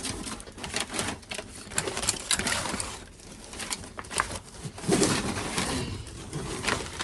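Hands rummaging through a bag of discarded crayons and school supplies: a run of rustles and small knocks, loudest and densest about five seconds in.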